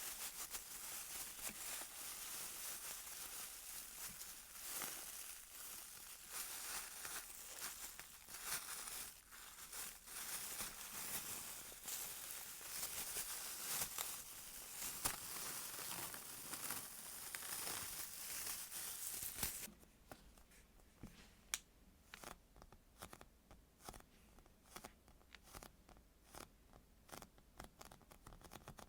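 Steady crinkling, rustling handling of squishy toys, which stops sharply about two-thirds of the way through and gives way to scattered soft taps and clicks.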